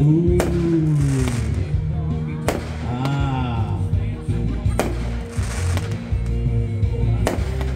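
Aerial fireworks shells bursting, four loud bangs about two seconds apart, with music playing underneath.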